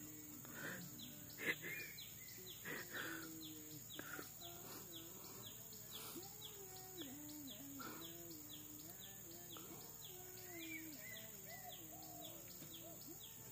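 Faint outdoor ambience: a steady high insect drone, with a bird's short falling chirps repeating about twice a second and a low wavering tone that comes and goes.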